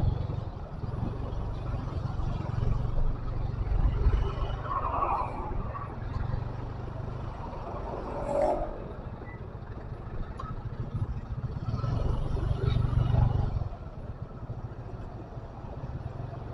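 A vehicle running: a steady low engine and road rumble that swells louder about four seconds in and again around twelve to thirteen seconds, then eases.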